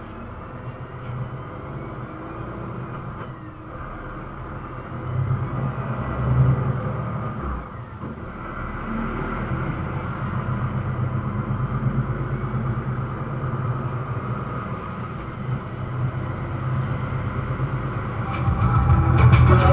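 Heavy truck engine running under way with road noise, a steady low rumble that grows louder about five seconds in and dips briefly near eight seconds.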